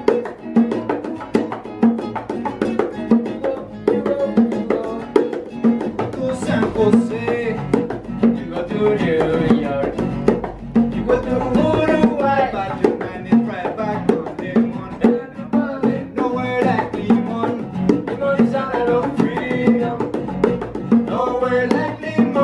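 Live duo of bongos and a nylon-string classical guitar playing a song: the bongos keep up steady, evenly spaced hand strikes under the strummed and picked guitar.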